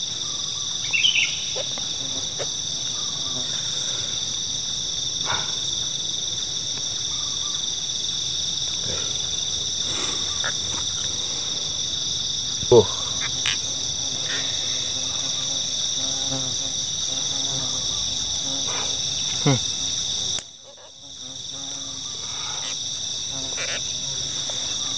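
Steady chorus of insects calling at two high, unbroken pitches, with a few faint clicks and knocks over it, the sharpest about thirteen seconds in. The chorus drops away suddenly about twenty seconds in and swells back over the next few seconds.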